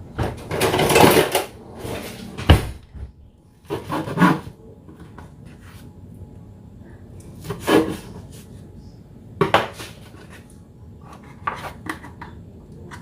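A knife cutting and scraping on a wooden cutting board, with light clatters of utensils and a lunch box being handled. A rasping scrape comes first, a sharp knock about two and a half seconds in, then scattered small knocks.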